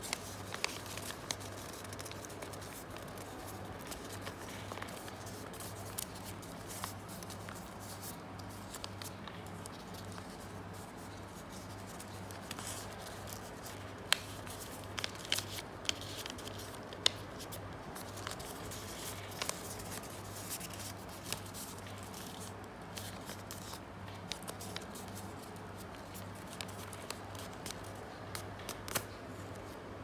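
Origami paper being folded and creased by hand: scattered rustles and sharp crackles of the sheet, most frequent and loudest in the middle, over a steady low hum.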